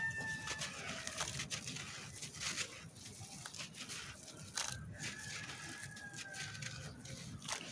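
A wet concrete chunk being squeezed and crumbled by hand over a basin of water: irregular gritty crackling and crunching, with crumbs dropping into the water. A thin, slightly falling high tone is held in the background for over a second, about five seconds in.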